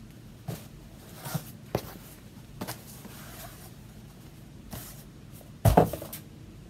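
Hands handling folded quilting fabric and packaging on a tabletop: a few soft rustles and light knocks, then a louder thump with a short clatter near the end.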